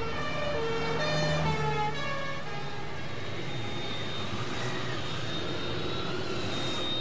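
Two-tone emergency siren alternating between a low and a high note, fading out after about two and a half seconds, over the low hum of passing vehicles. The siren is from a gendarmerie convoy of motorcycles and a van.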